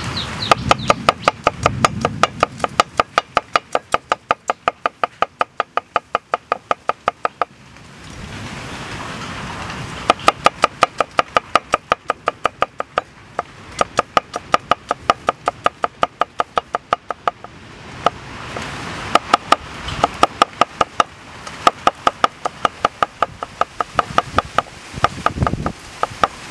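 Cleaver chopping garlic and red chillies on a wooden chopping block: quick, even knocks of the blade on the wood in three long runs, with two short pauses.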